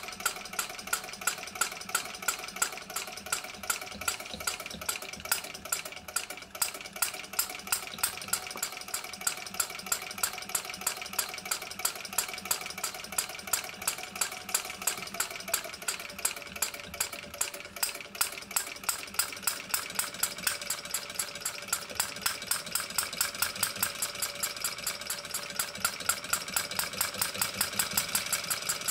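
Small four-stroke hot-bulb model engine with solid fuel injection, running steadily on kerosene under its fly-ball governor, set for a lower speed. It makes a regular rapid clicking from the valve gear and injection pump, with louder knocks from the firing a few times a second.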